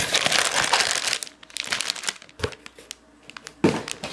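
Plastic packet of soft-plastic fishing worms crinkling as it is handled and pulled out of a cardboard box. The crinkling is densest for about the first second, then breaks into scattered crackles, with one sharp loud rustle near the end.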